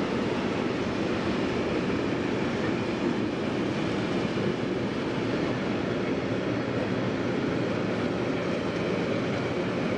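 Train wagons rolling steadily past on the track, a continuous noise of wheels on rail with no distinct strikes.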